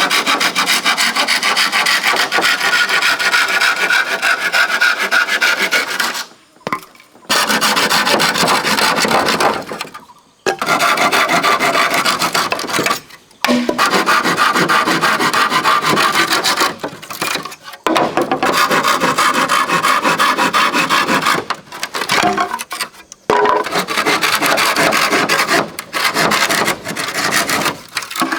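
A hand tool rasping against wood in rapid, steady strokes. It comes in runs of a few seconds broken by about five short pauses.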